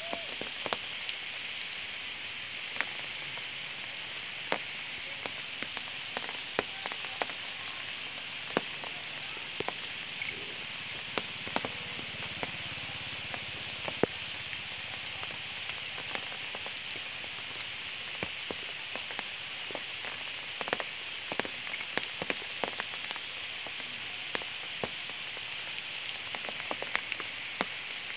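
Rain falling: a steady hiss with many scattered sharp taps of drops landing.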